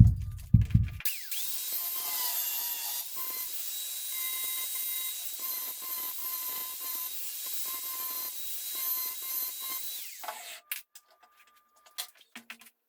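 A few heavy knocks, then an electric power tool starts with a rising whine and runs steadily while working wood, cutting off about ten seconds in.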